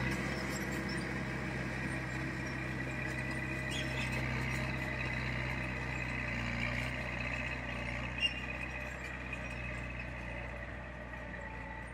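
Diesel engine of heavy earthmoving machinery running steadily, with a steady higher whine over it and a single sharp knock about eight seconds in.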